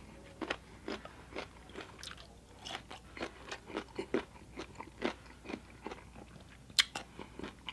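Close-miked chewing of a mouthful of crunchy papaya salad: a steady run of short, wet crunches and mouth clicks, with one sharper crunch near the end.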